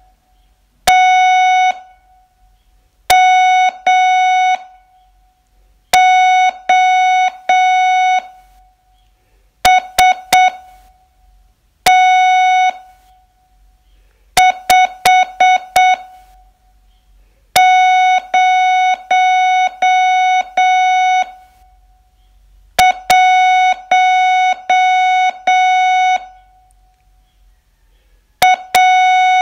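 Morse code sent as a single steady keyed tone, dots and dashes forming letters and numbers, with pauses of about a second or more between characters: a slow-speed Morse receiving test.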